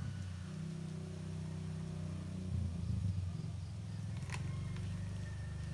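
An engine running steadily with a low hum, with one sharp click about four seconds in.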